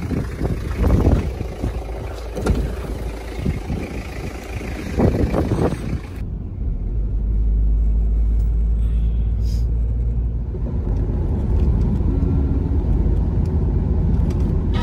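Wind buffeting the microphone beside a 4WD on a dirt road, an uneven gusty rumble. About six seconds in it cuts to a steady low rumble of engine and tyre noise heard inside the cabin as the 4WD tows a caravan along a sealed highway.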